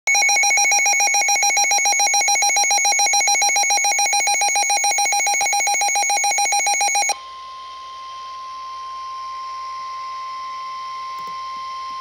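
Midland handheld NOAA weather radio sounding its alert: a loud, rapidly pulsing alarm for about seven seconds that cuts off suddenly. It gives way to the steady single-pitch NOAA Weather Radio warning alarm tone, which signals a severe thunderstorm warning.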